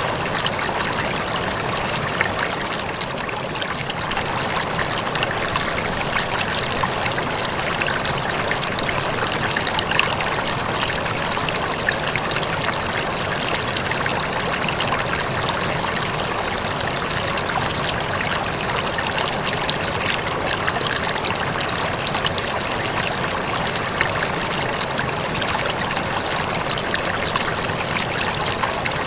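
Aquarium water trickling and splashing steadily as it circulates, with small scattered pops.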